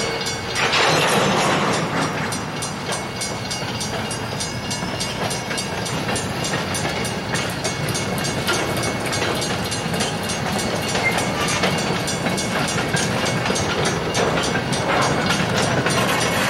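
Empty freight gondolas rolling past on the rails, their steel wheels clicking steadily over the track joints.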